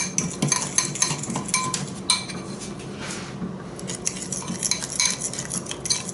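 A utensil stirring a thick marinade in a small glass bowl, with quick, repeated clinks and scrapes against the glass. There is a brief lull a little past the middle.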